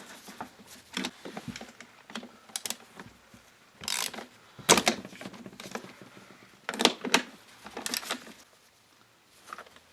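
Hand work on a small two-stroke scooter engine: irregular clicks, light knocks and rustling as parts are handled and an opening is covered against dirt, with two louder knocks in the middle.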